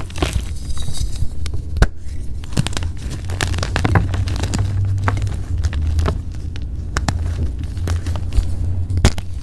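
Pressed gym chalk being crushed and crumbled: a run of irregular small crunches and crackles over a steady low hum.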